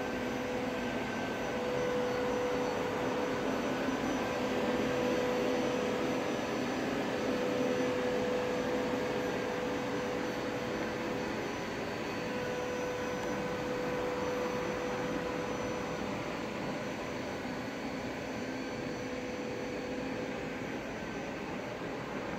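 A steady mechanical drone with a held humming tone. It swells slightly midway and eases off toward the end.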